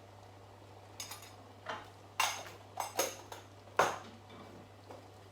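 Cookware clinking while seasonings go into a pot of spaghetti: about seven sharp, irregular clinks and knocks, the loudest near the end, over a faint steady hum.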